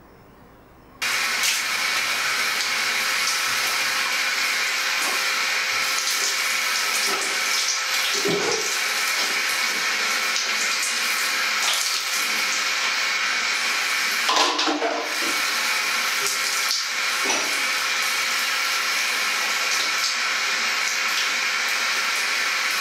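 Shower spray running steadily onto a person and the tiled floor, a constant rushing hiss that starts abruptly about a second in.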